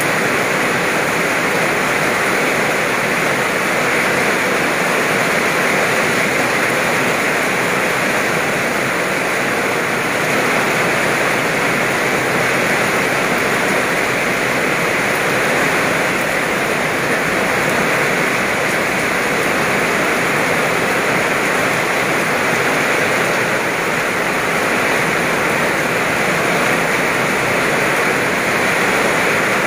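Heavy tropical downpour: a steady, unbroken hiss of rain pouring onto the ground, puddles and leaves.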